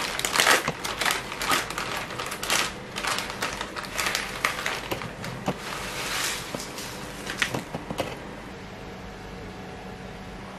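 Plastic instant-noodle packet crinkling and rustling as hands tear it open and tip out the dry noodle block. The crinkling stops about eight seconds in, leaving a steady low hum.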